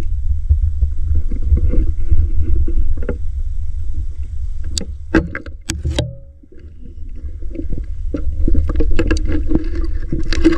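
Water sloshing and splashing around someone wading through shallow water, over a heavy low rumble on the microphone. A few sharp knocks come about five to six seconds in, then a brief lull before the sloshing picks up again.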